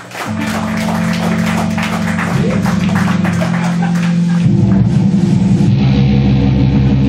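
Live distorted electric guitar holding a chord under sharp drum hits, then about four and a half seconds in the guitar breaks into a fast, chugging strummed riff as the next punk song starts.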